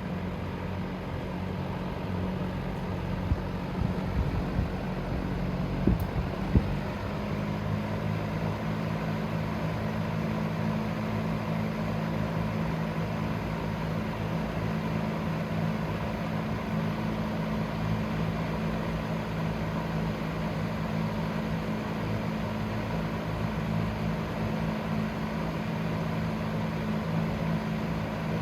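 Dominion box fan running, its motor humming under a steady rush of air. A few clicks come about four to six seconds in as the speed switch is worked, and the hum then steps up in pitch as the fan goes to high speed.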